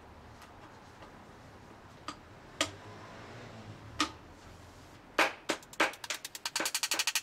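A few scattered clicks and light knocks as a thin galvalume steel sheet is handled and clamped on a homemade wooden bending brake. About five seconds in, a run of sharp taps begins and quickly speeds up.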